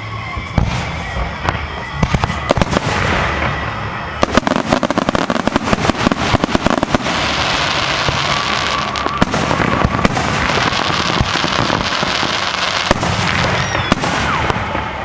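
Fireworks display: a rapid string of bangs and pops, densest about four to seven seconds in, then a steady crackling hiss, with a short whistling glide near the end.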